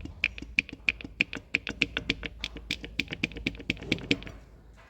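Ford Mondeo dual-mass flywheel, with the clutch removed, rocked back and forth by hand: a rapid train of sharp clicks, about seven a second, as its two halves knock through their free play. The clicks stop a little after four seconds in. This is the flywheel blamed for the knocking at start-up and idle.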